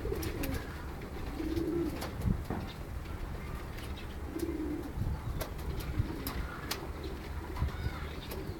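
Domestic pigeons cooing: a few low coos spaced some seconds apart, with scattered light clicks and taps in between.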